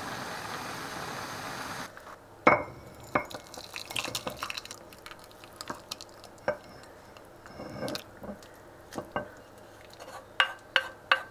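A steady hiss cuts off about two seconds in. Then soup is poured from a small pot into a cup, with a ladle clinking against the pot and dishes and liquid dripping and splashing. There are several sharp clinks, the loudest early on and three in quick succession near the end.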